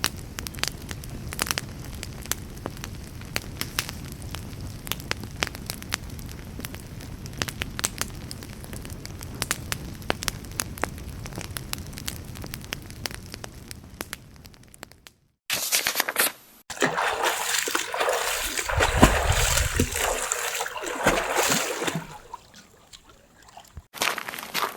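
Irregular crackling and popping over a low rumble for about fifteen seconds. It cuts off abruptly, and after a short silence a louder, dense rushing noise runs for about six seconds, then fades.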